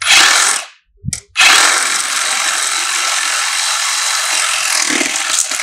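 Power saw cutting through a length of PVC pipe. A short burst comes first, then after about a second a steady, unbroken cut runs about four seconds.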